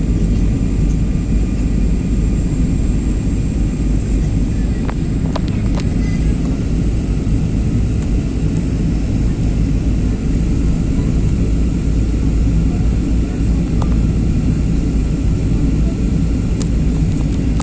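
Airplane noise during landing: a loud, steady low rumble, with a few faint clicks about five to six seconds in.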